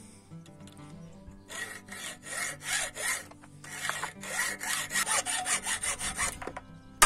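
Hacksaw cutting through a 6 mm steel printer rod held in a bench vise, in rhythmic back-and-forth strokes, about two to three a second, that start about a second and a half in and stop shortly before the end. A sharp click comes right at the end.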